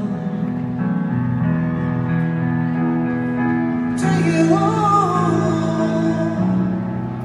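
Music with held chords; a singing voice comes in about four seconds in over a fuller accompaniment.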